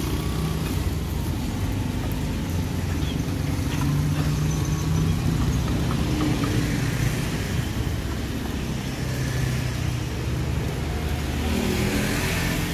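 Motor vehicle traffic passing on the street: engines running with a steady low rumble that swells and fades as vehicles go by.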